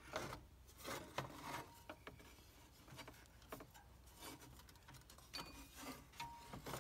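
Engine cooling fan and fan clutch assembly being twisted and worked out of the engine bay: the fan blades scrape and bump against the surrounding parts in short, scattered rubs and light knocks.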